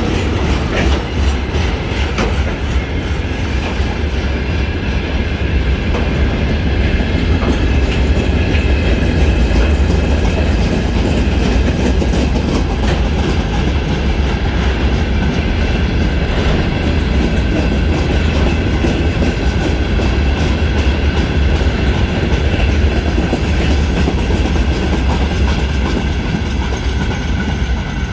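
Freight train passing close by: wagons rolling past with a steady low rumble and wheels clattering over the rail joints.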